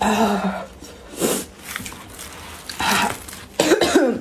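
A woman eating spicy noodles: several short, noisy slurps, with brief coughs and throat sounds from the heat, one at the start and one near the end.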